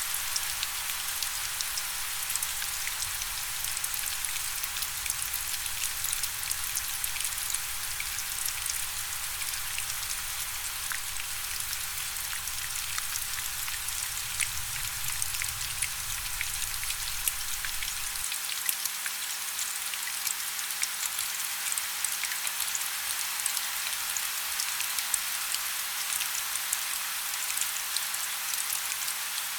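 Steady rain falling, a dense even hiss full of small individual drop ticks. A faint low rumble underneath stops about two-thirds of the way through.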